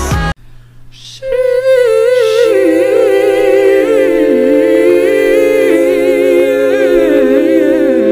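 Wordless hummed vocal harmony: one voice holds a steady note while a lower line wavers in a slow melody beneath it. It starts about a second in, after a brief quiet gap.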